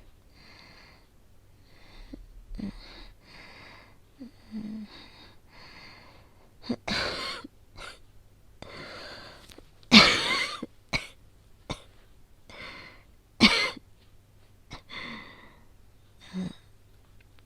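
A woman coughing with asthma and a cold. Her breathing is strained and wheezy for the first few seconds, then comes a run of hard, uneven coughs from about seven seconds in, the loudest about ten seconds in.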